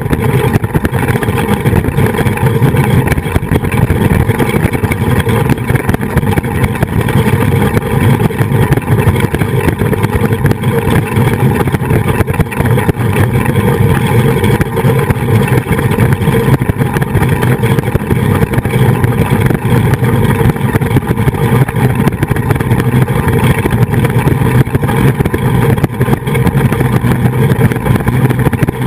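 Flying-fox trolley pulleys running along the steel cable with a loud, steady whir, mixed with wind rushing over the microphone of the camera fixed to the trolley.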